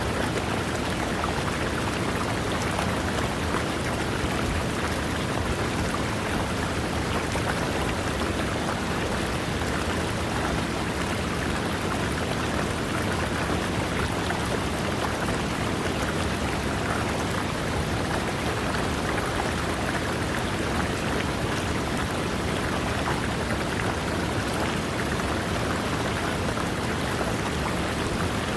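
River water running over rocks, a steady, even splashing wash of water that does not change.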